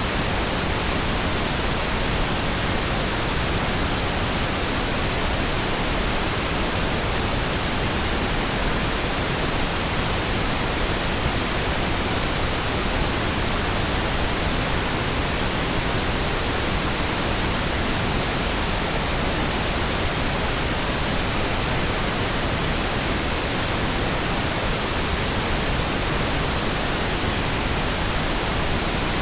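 Steady, continuous pink noise: an even hiss across all pitches with no changes or interruptions.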